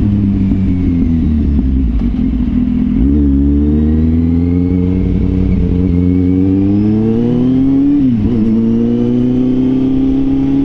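Motorcycle engine heard from the rider's position. It eases off at first, then pulls up through a gear with its pitch climbing steadily. About eight seconds in the pitch dips sharply at a gear change, then the engine holds a steady cruise.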